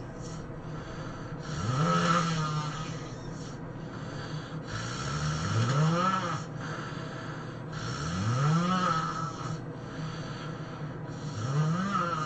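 A person snoring loudly: four heavy snores about three seconds apart, each rising in pitch as it goes.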